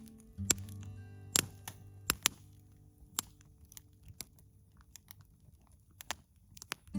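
Burning wood in a campfire crackling, with sharp irregular pops and snaps, over soft acoustic guitar music that fades out about three seconds in and comes back at the very end.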